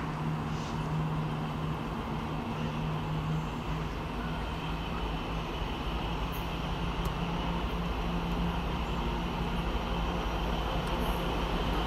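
Class 66 diesel-electric locomotive's two-stroke V12 engine running with a steady low drone as it approaches hauling a container freight train, with a low rumble from the train building and growing louder toward the end.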